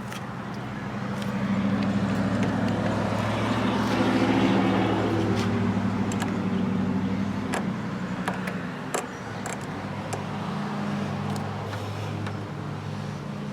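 A motor vehicle engine running with a steady hum, growing louder toward about four seconds in and then easing off, with a few light clicks over it.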